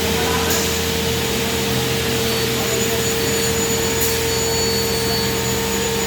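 Computer beam saw running steadily: an even whirring with a constant whine and a low hum, with no cut starting or stopping.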